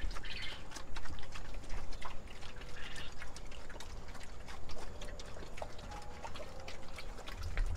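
Pigs eating soft donuts off the ground: wet chewing and smacking, with many quick irregular clicks.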